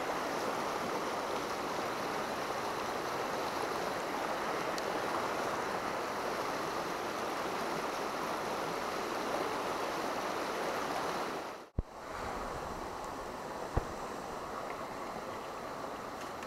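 Shallow river rushing over rocks: a steady hiss of fast water. About twelve seconds in it drops out for an instant and comes back a little quieter. A single short knock follows a couple of seconds later.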